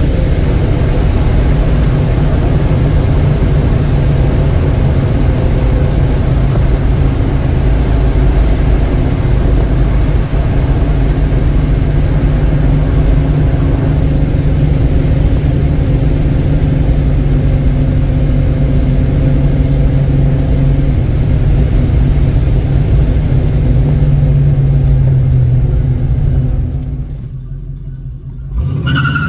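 1971 Chevrolet Chevelle cruising at a steady highway speed, heard from inside the car: a constant low engine hum over road and wind noise, dipping briefly near the end.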